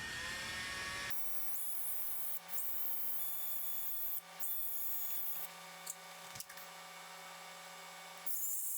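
Power drill running steadily, spinning a small steel pin while Scotch-Brite pinched in pliers scrapes against it, with scratchy hissing that comes and goes. This is the pin's burrs being polished down.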